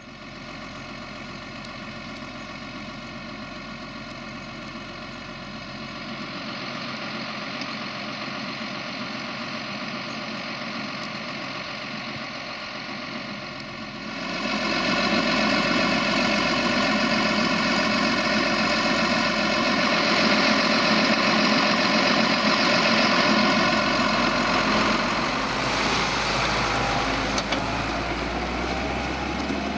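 Diesel tractor engine running at a steady speed, driving a PTO-mounted slurry pump. About halfway through the sound becomes much louder and closer.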